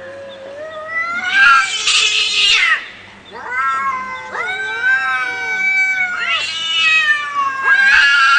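Two cats caterwauling at each other in a fight standoff: long, drawn-out yowls that waver up and down in pitch and overlap. They swell into louder, harsher screeches about a second and a half in and again near the end, with a brief lull around three seconds.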